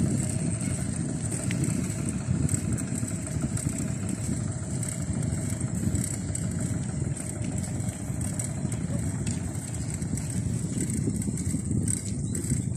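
Steady low rushing noise of a bicycle being ridden along a rough concrete path: wind buffeting the microphone mixed with tyre noise on the concrete.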